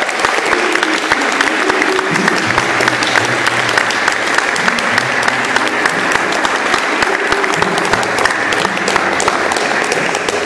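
Audience applauding steadily at the close of a North Indian classical performance.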